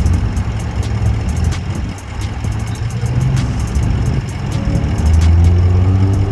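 Car engines and exhausts running as cars drive in; a deep exhaust note gets louder about five seconds in and rises in pitch near the end as the engine revs.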